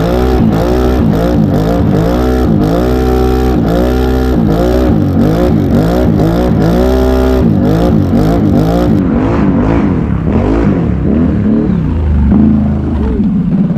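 Can-Am Renegade XMR 1000R ATV's V-twin engine revving up and down in quick repeated bursts, about two a second, some held briefly at the top; after about nine seconds it settles to lower, steadier revs with one more rise near the end.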